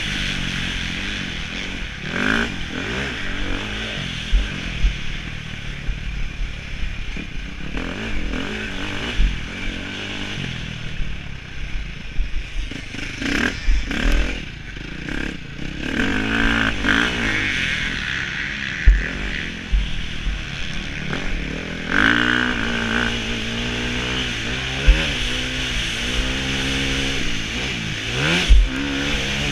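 Motocross bike engine revving up and down hard between gears and corners as it is raced around the track, heard through a helmet-mounted camera with wind noise. Scattered sharp knocks come from the bike hitting bumps and landing.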